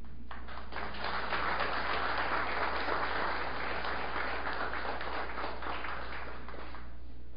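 Applause, many hands clapping. It starts a moment in, swells, then dies away near the end.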